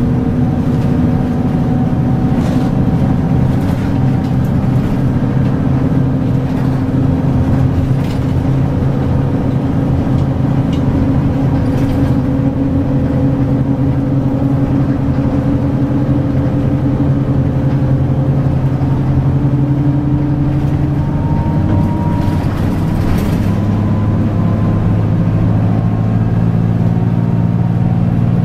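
Route bus's diesel engine running at a steady cruise, heard from inside the passenger cabin, with a few light rattles. About three-quarters of the way through, the engine note drops to a lower pitch and holds there.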